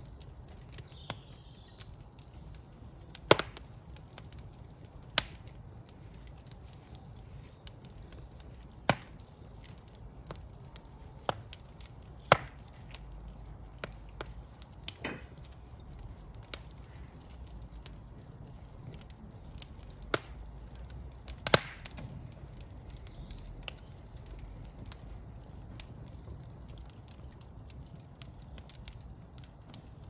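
Split wood logs burning in a brick fireplace: a steady low rush of flame with sharp, irregular pops and snaps from the burning wood, the loudest every few seconds.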